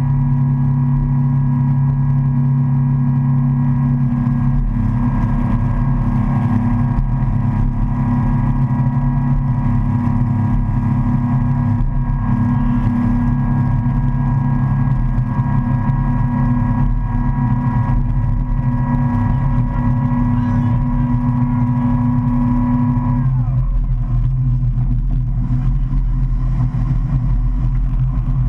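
Motorboat engine running steadily under load while towing, over the rush of water from the wake. Near the end the engine's pitch drops and stays lower as the boat eases off.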